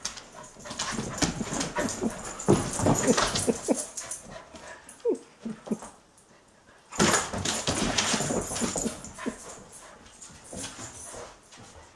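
A collie and a Belgian Tervuren puppy playing: paws scrabbling and knocking on the floor and rug, with a few short whines about five seconds in. A brief hush about six seconds in, then more scuffling.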